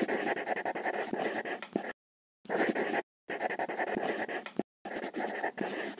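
Felt-tip marker scratching in quick strokes, the sound of writing and drawing, in four bursts with short silent gaps between them.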